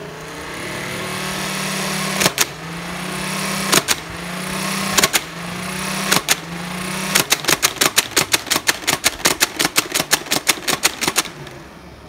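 Nerf Ultra One blaster's flywheel motors whirring while several darts are fired, each shot a sharp crack, the motor hum building between shots. From about seven seconds in the motors stop and a fast run of mechanical clicks follows, about seven or eight a second, for some four seconds.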